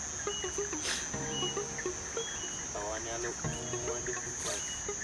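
Night insects, crickets, keep up a steady high-pitched trill, under music with a chord pattern that repeats about every two seconds.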